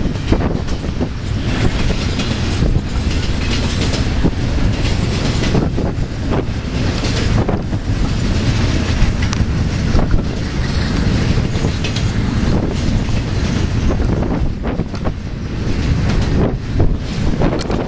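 Union Pacific intermodal freight train rolling past at close range, its wheels clicking irregularly over rail joints.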